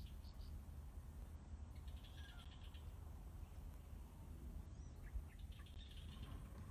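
Faint bird chirps in short clusters, about two seconds in and again around five to six seconds in, over a low steady rumble.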